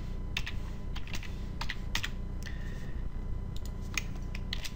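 Typing on a computer keyboard: a word is keyed in as a run of irregular, sharp keystroke clicks, over a steady low hum.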